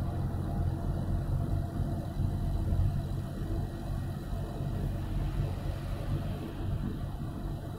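Steady rumble of a car cruising at road speed, heard from inside the cabin: engine and tyre noise with no distinct events.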